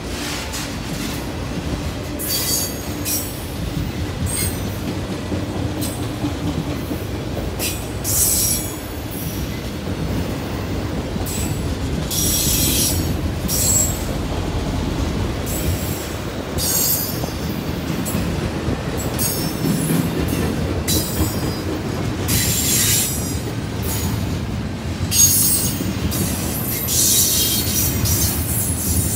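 Freight train cars rolling past over a crossing, first autoracks and then double-stack container cars: a steady rumble of steel wheels on rail, broken again and again by short, high-pitched wheel squeals that come and go.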